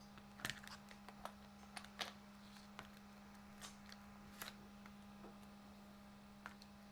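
Faint, irregular clicks and taps of plastic RC car parts being handled as a wheel is fitted onto its hex hub, over a steady low hum.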